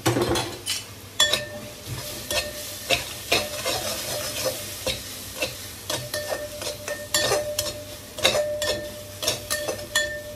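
Onion-tomato masala with freshly added red chilli and cumin powder frying with a low sizzle in a pan while it is stirred. The strokes knock and scrape against the pan about once or twice a second, some leaving a short ring.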